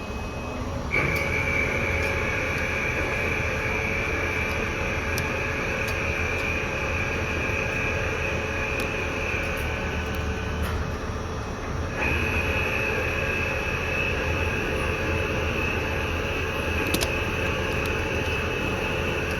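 Metal lathe running, with a high steady whine from the cutting tool that starts about a second in, stops briefly past the middle, and comes back.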